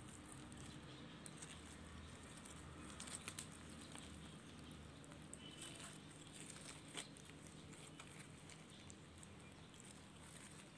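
Clear red glitter slime packed with foam beads squeezed and stretched in gloved hands, giving faint, irregular crackles and clicks.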